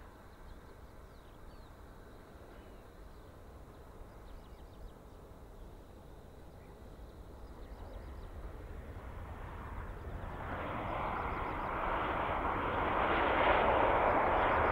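Airbus A320-200 jet engines on the landing rollout: quiet at first, then a rushing roar that builds from about eight seconds in and stays loud to the end, typical of reverse thrust being applied after touchdown. Faint bird chirps can be heard in the quiet first half.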